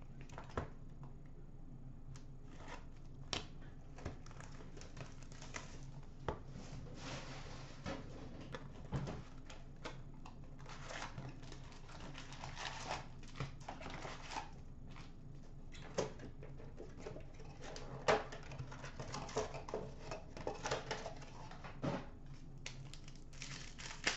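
Hands opening a box of hockey card packs: cardboard and pack wrappers tearing and crinkling, with scattered clicks and rustles of handling.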